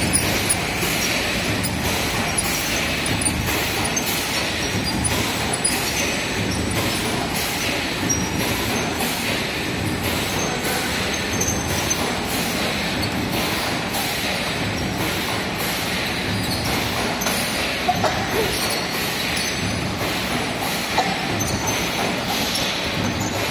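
Rice-crumb breading machine and conveyor oven running: a steady mechanical rattle from motors and wire-mesh conveyor belts, with a faint regular clicking.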